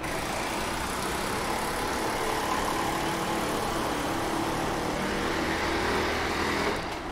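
A road vehicle running close by: a steady engine with a broad hiss that cuts off abruptly near the end.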